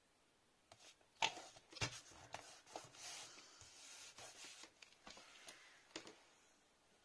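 Quiet paper handling: two light taps about a second in, then a few seconds of soft rubbing and rustling as hands press and smooth patterned design paper onto a card stock card, with a last small tap near the end.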